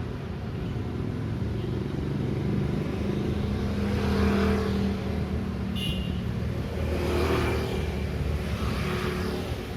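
Busy city street traffic: cars and motorcycles running and passing, with a steady low engine drone and vehicles swelling past a few times. A short high-pitched squeak or beep sounds near the middle.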